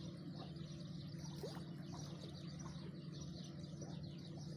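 Steady low drone of distant motorboat engines on the river, with a few faint bird chirps over it.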